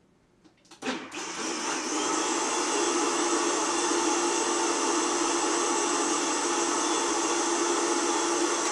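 Countertop blender switching on about a second in and running steadily as it purées a raw vegetable soup.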